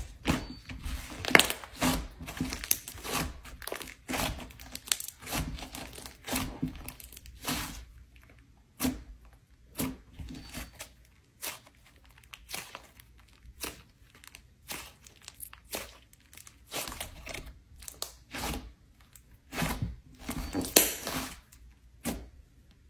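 Hands stretching, folding and squeezing thick slime, giving irregular sticky crackles, pops and tearing sounds, busiest in the first few seconds and again near the end.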